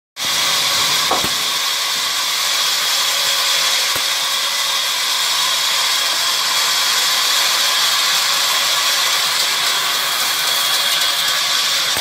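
Sawmill band saw blade cutting lengthwise through a log: a steady, loud hiss of the blade in the wood, strongest in the high range.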